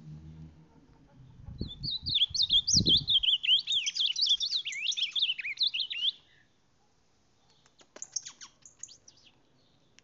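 Ultramarine grosbeak (reina mora) singing a fast warbling song of quick rising and falling notes for about four and a half seconds, with a few low thumps near its start. A few short, fainter chirps follow near the end.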